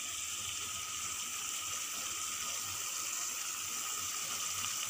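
Masala gravy sizzling steadily in a kadhai on the gas stove as it roasts, an even hiss with faint crackle throughout.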